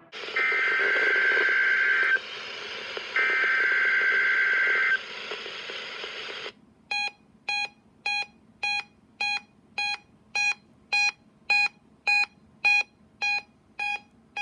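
NOAA Weather Radio Required Weekly Test alert from KEC77: two SAME digital header bursts, each a buzzy warbling data tone about two seconds long, over radio static. About six seconds in, the static cuts off and a weather radio receiver's alert beeper starts sounding short, even beeps, a little under two a second.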